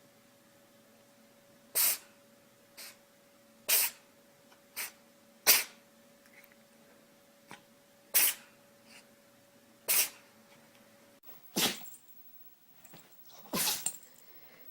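A pet sneezing again and again: about seven sharp, short sneezes roughly two seconds apart, with a few fainter ones between them.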